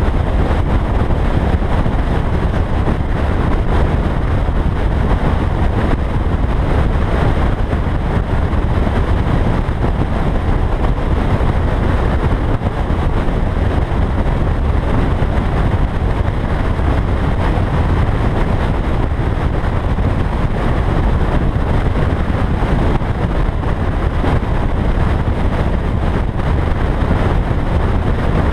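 A car driving steadily at road speed, heard from a camera mounted outside on its bonnet: wind rushing over the microphone on top of road and engine noise, a steady deep rumble that never changes.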